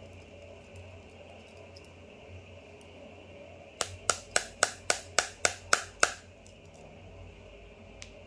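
A quick, even run of nine sharp metallic clicks, about four a second, from work on a disassembled gas blowback airsoft pistol with a metal hand tool.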